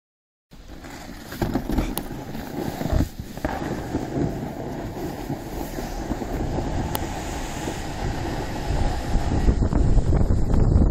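Snow tube sliding down a packed-snow run: a steady rushing noise of the tube over the snow mixed with wind on the microphone, getting louder near the end as it picks up speed. A few sharp knocks in the first few seconds.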